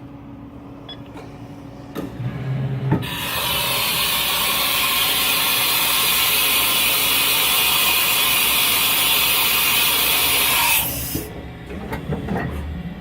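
Haas VF-0 vertical machining center running. There are a few clicks and clunks, then a loud, steady hiss starts abruptly about three seconds in and cuts off sharply about three-quarters of the way through. More clicks and knocks follow.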